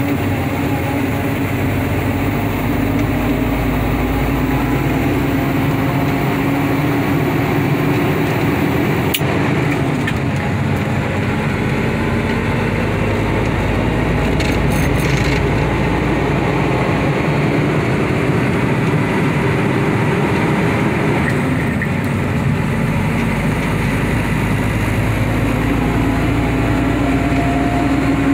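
Semi-truck engine running steadily at highway speed, heard from inside the cab along with road and tyre noise. About ten seconds in the engine note drops, then slowly climbs back, just after a single sharp click.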